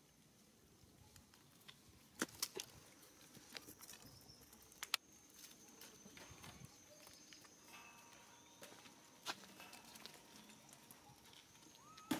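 Quiet outdoor ambience with a few sharp clicks and taps, and a faint steady high-pitched tone from about five seconds in. A short rising chirp comes near the end.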